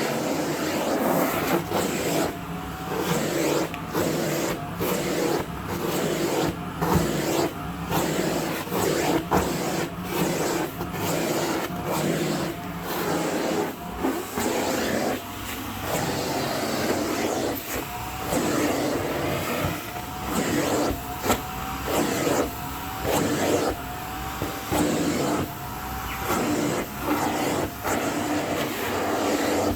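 Electric vacuum cleaner running, its tone dipping and recovering in quick repeated strokes, roughly once a second.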